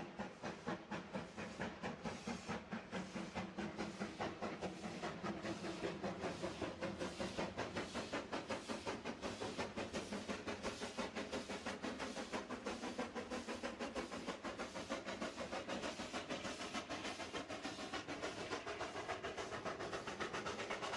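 Steam locomotive chuffing at a steady pace, about four exhaust beats a second.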